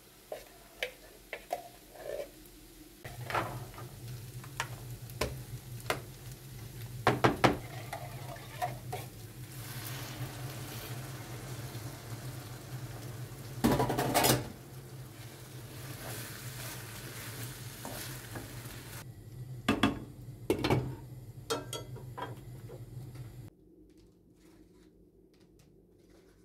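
Sausage and onion in tomato sauce sizzling in a frying pan, stirred with a wooden spoon that knocks against the pan several times, over a steady low hum. The first few seconds hold only small clicks and scrapes, and near the end the sizzling stops, leaving faint room sound.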